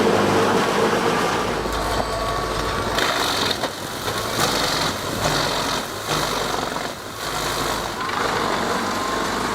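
Heavy machinery engine running steadily, with the sound changing abruptly every second or two.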